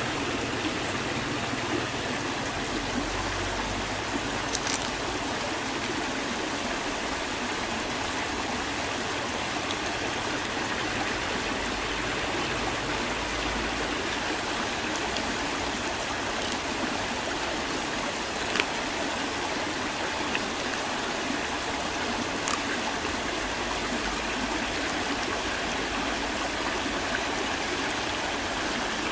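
Fast-flowing rocky stream rushing over stones, a steady even rush of water, with a few brief sharp clicks.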